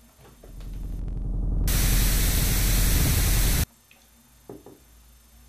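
A low rumbling buzz swells up over about a second, then becomes a loud burst of white-noise static hiss that cuts off abruptly about three and a half seconds in. A couple of faint clicks follow.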